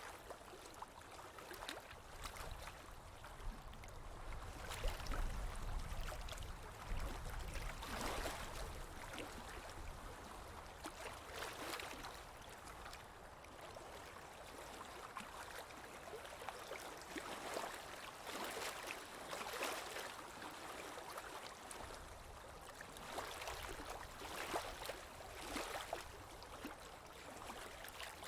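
Stream water running and splashing, with irregular gurgles. A low rumble comes in for a few seconds about four seconds in.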